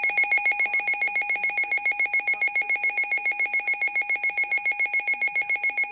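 Weather radio's electronic alert alarm, a rapid two-tone beeping at about eight beeps a second, signalling an incoming warning. It cuts off abruptly at the end.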